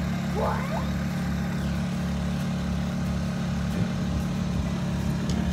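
Sailboat's inboard diesel engine running steadily while motoring: a low, even drone with a regular throb underneath. A brief rising whistle sounds about half a second in.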